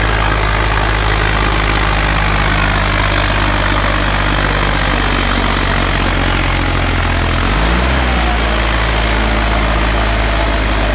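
John Deere 5310 tractor's three-cylinder diesel engine running hard under heavy pulling load, a loud steady low drone. Its note dips and then rises again about seven and a half seconds in.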